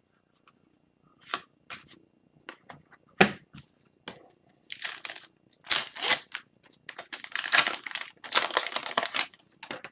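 Hockey card pack's foil wrapper being crinkled and torn open by hand, with light rustles and a click of cards and packs being handled in the first few seconds.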